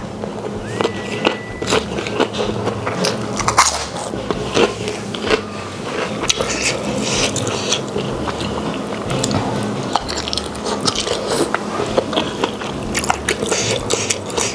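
Close-miked chewing of a mouthful of spicy rice with stir-fried squid, wet and smacking, with many sharp irregular clicks of the mouth and teeth throughout.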